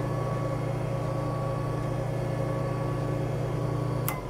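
Sanford Model MG surface grinder running steadily with a hum, its spindle belt-driven by a 3/4 hp Craftsman motor through cast iron V-belt pulleys, on its newly mounted motor. About four seconds in, the lever switch clicks off and the machine starts to coast down.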